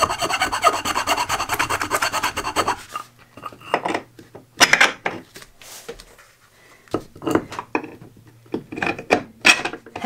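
Round file rasping back and forth in rapid strokes inside a drilled hole in a timber batten, enlarging it so a bolt will go through. The filing stops about three seconds in, and a few separate knocks follow as the timber is fitted down over the bolts.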